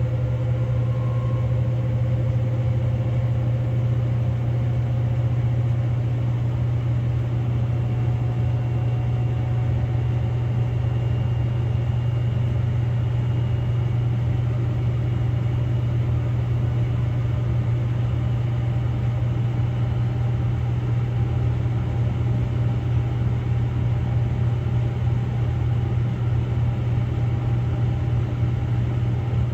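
Samsung Grande AI front-loading drum washing machine on a spin-only cycle, the drum spinning at speed with a steady low hum and a faint motor whine above it.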